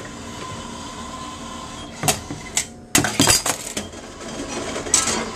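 Envipco CF1500G glass reverse vending machine running its bottle intake with a steady motor hum and a faint whine. About two seconds in, around three seconds in and again near the end, a glass bottle clinks and rattles as it is fed in.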